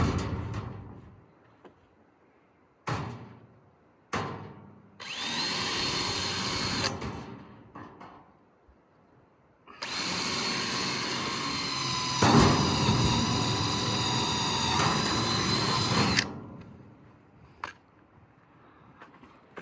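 Power drill running in two long spells, the first about two seconds and the second about six, with a steady whine, as sheet metal is fastened over a refrigeration unit. A few sharp knocks come before the first spell.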